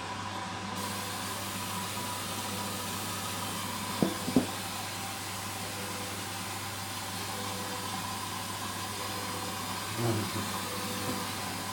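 Hoover washing machine in its soak stage, running with a steady hiss and low hum, with two short knocks about four seconds in.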